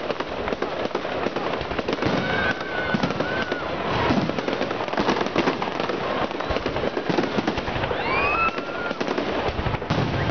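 Fireworks display going off: a dense, continuous barrage of crackling and banging bursts, with a few short whistles gliding in pitch about two to three seconds in and again near the end.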